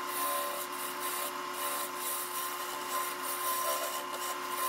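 Wood lathe running with a steady motor whine while a carbide turning tool scrapes the spinning mesquite vase blank, giving a continuous hissing cutting noise.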